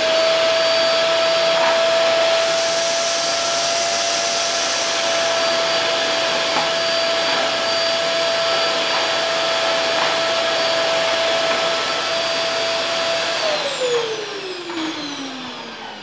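Eureka Forbes Quick Clean DX 1200-watt canister vacuum cleaner running at full suction, loud, with a steady high whine over a rush of air. About 13 seconds in it is switched off and the motor winds down, its whine falling in pitch.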